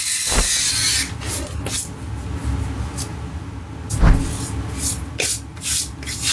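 A loud hiss for about the first second, then hands rubbing and patting a freshly shaved face, with scattered short brushing strokes and a dull thump about four seconds in.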